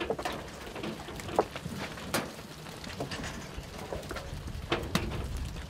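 A flock of sheep shifting in a pen, with a few scattered sharp knocks and clicks of hooves over a low, steady background noise.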